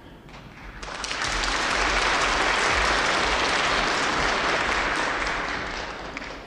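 Concert hall audience applauding. The applause swells over the first second or two, holds steady, then dies away near the end.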